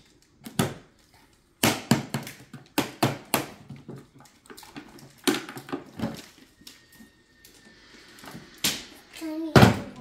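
A series of irregular knocks and clunks as a plastic Henry vacuum cleaner is handled, lifted by its handle and set down again on a wooden floor. The loudest clunk comes near the end.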